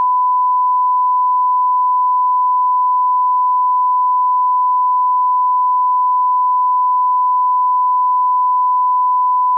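Steady 1 kHz reference tone: a single pure pitch held unbroken at an even level.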